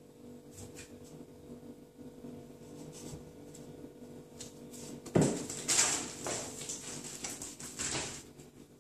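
Cats jumping down and scrambling on a wooden floor: one sharp thump about five seconds in, then a few seconds of paws scuffling and claws clicking.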